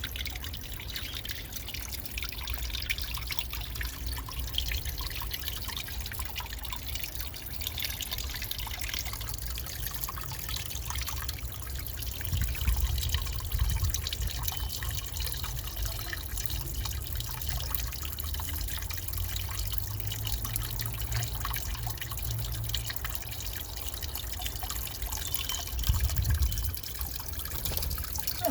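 Water trickling and dripping steadily, with small splashy ticks, and a couple of brief low rumbles around the middle and near the end.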